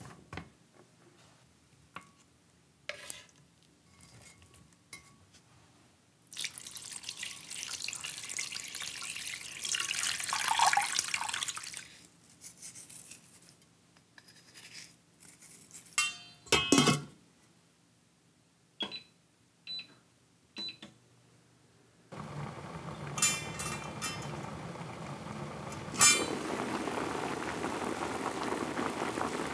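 Cooking sounds in a stainless steel pot. First come light clicks of radish pieces being laid in, then a rush of liquid sound that swells in the middle and a few sharp knocks. From about two-thirds of the way through, the pot of sea bream broth boils steadily.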